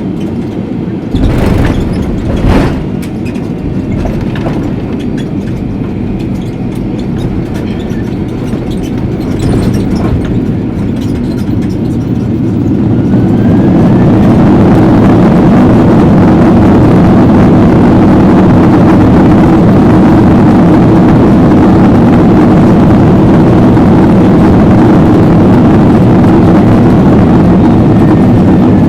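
Boeing 767-300 landing, heard from the cabin: two heavy thumps of touchdown, then a steady rumble. From about twelve seconds in, the engine noise swells to a loud, steady rush, typical of reverse thrust on the landing roll.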